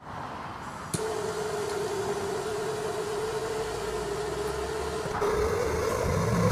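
Handheld gas torch: a soft hiss, a sharp click about a second in, then the steady rush of the flame with a hum, heating a sealed glass test tube.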